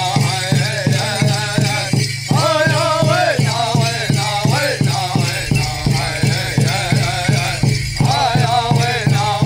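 Hopi men's chorus chanting a corn dance song to a steady drum beat, about three beats a second, with the dancers' rattles shaking in time.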